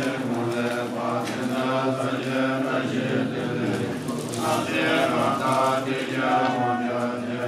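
Tibetan Bön monks chanting prayers of aspiration together, a steady low-pitched recitation of many male voices.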